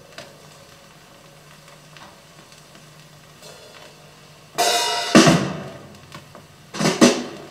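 Recorded drum kit played back from an audio check record through loudspeakers. After a few seconds of faint background, a loud cymbal-and-drum strike comes about four and a half seconds in and rings out, followed by a second hit. Near the end there are two more quick strikes.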